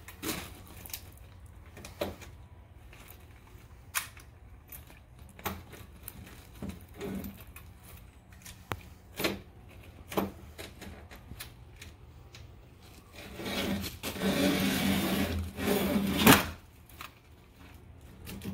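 Screen spline being rolled and pressed into the channel of an aluminium screen door frame with a hand spline tool: scattered clicks and knocks of the tool against the metal frame, then a louder few seconds of scraping and rubbing near the end, closing with a sharp knock.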